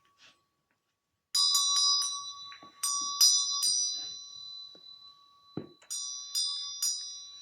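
A small bell struck in three quick groups of strikes, each group ringing on with bright high tones. It is rung as a ritual bell to open the offering.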